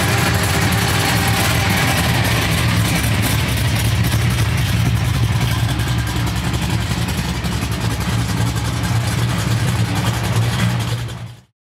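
A car engine running steadily close by, with a strong low hum under a broad hiss. The sound cuts off suddenly near the end.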